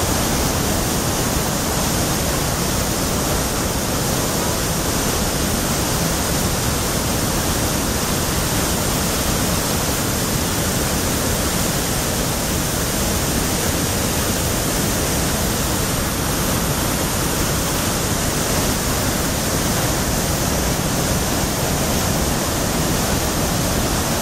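Athabasca Falls: the Athabasca River's white water pouring through the rock gorge, a loud, steady rushing that doesn't change.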